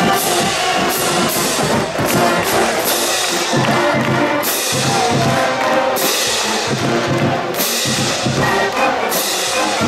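Marching band brass and drums playing the university fight song, with regular crashes, while the football players and fans sing along.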